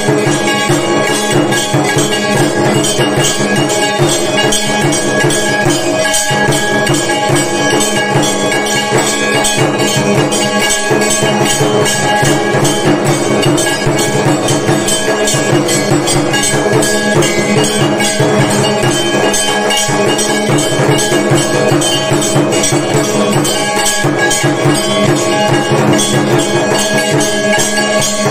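Continuous, rapid clanging of temple bells and bell-metal gongs with drumming, the percussion that accompanies an evening aarti, with many ringing metallic tones sustained over dense quick strikes.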